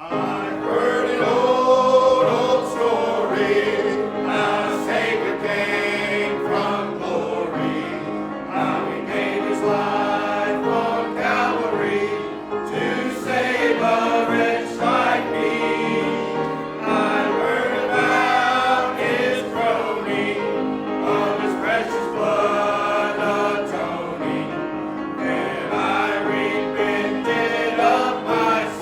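Church congregation singing a hymn together, many voices at once, the singing starting right at the beginning and going on steadily.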